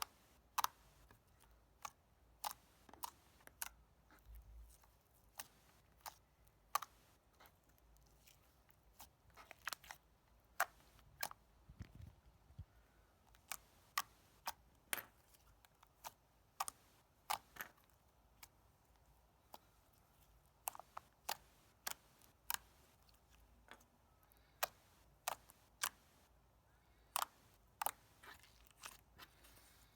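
Clear 'water-bomb' slime being pressed and worked by hand, giving sharp, irregular clicks and pops, roughly one or two a second.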